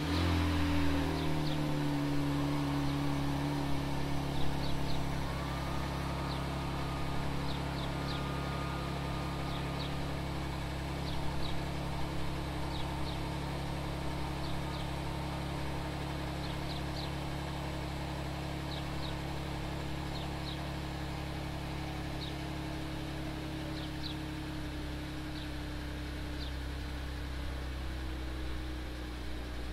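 Kia Stinger GT2's 3.3-litre twin-turbo V6 just after a cold start. The revs flare briefly in the first second, then it settles into a steady high cold idle that slowly drops in pitch and loudness as it warms up.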